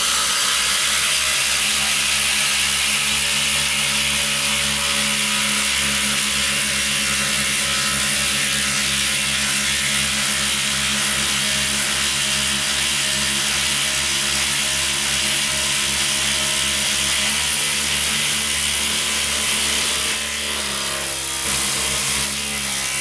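Makita 40V XGT cordless impact drivers hammering steadily and without a break as they drive long lag screws down into timber through socket adapters, working hard under heavy load. The hammering eases briefly near the end.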